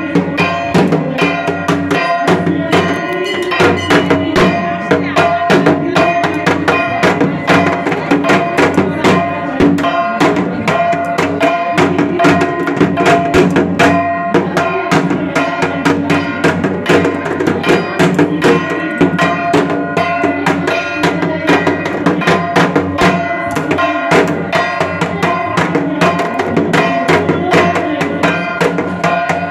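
Fast, continuous drumming on a dhak, the Bengali barrel drum beaten with thin sticks for Durga Puja, with ringing metal percussion sounding along with it.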